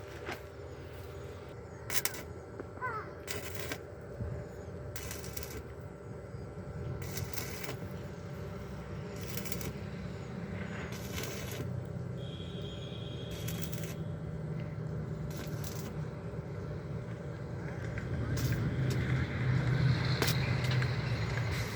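Short bursts of electric arc welding, each crackling for under a second, repeated every second or two as tack welds are laid on the steel supports. A low engine hum underneath grows louder near the end.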